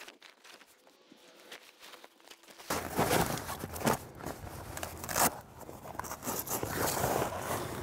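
Pop-up camper's tent fabric rustling and crinkling as it is pushed and tucked in by hand, with many short crackles. It sets in about a third of the way in after a quiet start.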